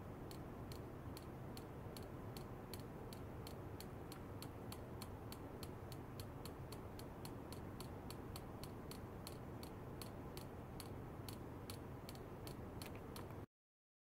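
Faint, fast, fairly regular ticking, about three to four sharp clicks a second, over a low steady hum; it cuts off suddenly near the end.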